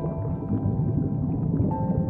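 Background music: a slow melody of held notes over a low rumbling noise.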